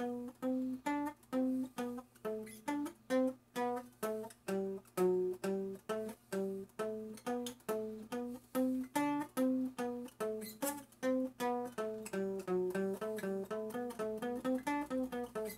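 Acoustic guitar playing a slow, even single-note scale pattern on the D and G strings, part of a G major / E minor scale with F sharp, with each note picked separately at about three notes a second as the line steps up and down.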